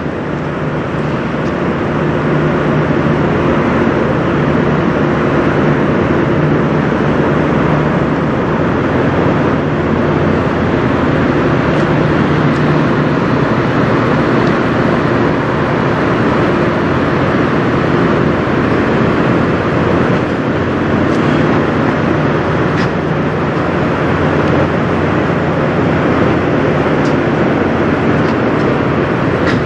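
Kenworth W900 semi truck's diesel engine idling, a loud, steady drone with an even hum that does not change.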